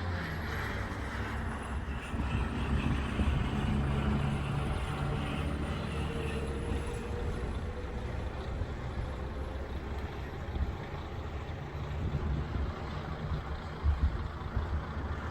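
A vehicle's engine running steadily at low revs, straining a little louder a few seconds in, as its wheels spin on the slippery snow-covered road.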